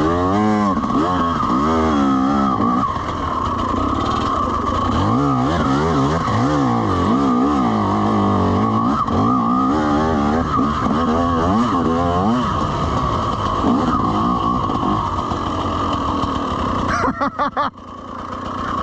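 Dirt bike engine revving up and down again and again over a steady engine drone. The revving stops about twelve seconds in, leaving the steady drone, and the sound breaks up briefly near the end.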